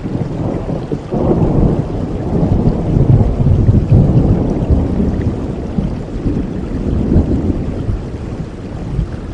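Rain falling steadily with a long roll of thunder that swells about a second in, peaks in the middle and dies away near the end.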